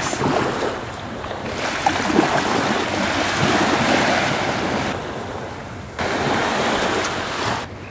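Small waves breaking and washing up a sandy beach, with wind buffeting the microphone. The sound changes abruptly about six seconds in.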